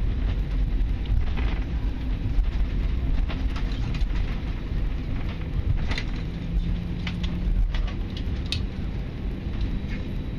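Steady low rumble inside the cabin of an Airbus A320, with scattered light clicks and rattles.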